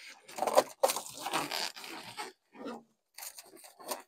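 Latex balloons being handled and pressed against each other, making irregular rubbing and crinkling noises, busiest in the first two seconds.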